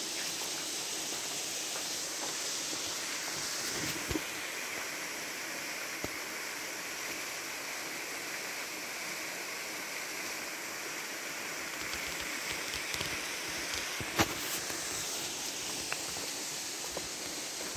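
Steady rush of flowing creek water and a small waterfall spilling over a rock ledge. A few short knocks break in, the sharpest about fourteen seconds in.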